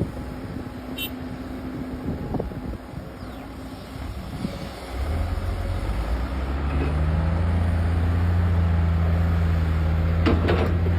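Excavator engine and machinery noise: mixed clattering at first. About five seconds in, a steady low engine drone comes up, steps up slightly in pitch and holds, with a short rattle near the end.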